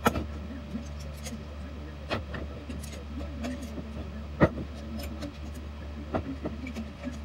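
Metal clinks and knocks of two adjustable wrenches turning a threaded terminal fitting on stainless rigging wire held in a vise. There are a few sharp knocks, the loudest about four and a half seconds in, over a steady low hum.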